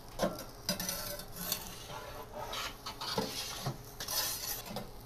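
Pizza turning peel scraping and clinking against the clay biscotto stone in the oven mouth as the pizza is turned: several short scrapes and knocks.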